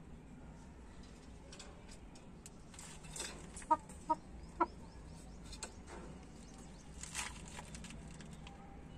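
Aseel cross chickens clucking softly: three short clucks in quick succession about four seconds in, with a couple of brief rustles before and after.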